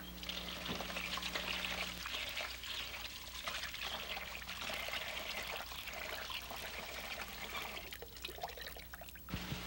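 Water trickling and pouring into a plastic bowl of raw rice as the rice is rinsed by hand.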